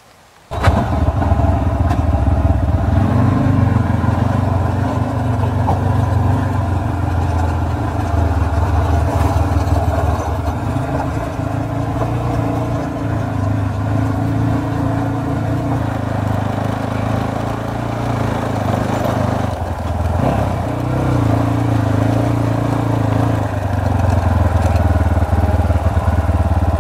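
Single-cylinder 250 cc adventure motorcycle engine (KTNS RS3 / Zongshen RX3) running loud and steady, starting abruptly about half a second in, with a brief dip in the engine note about three quarters of the way through.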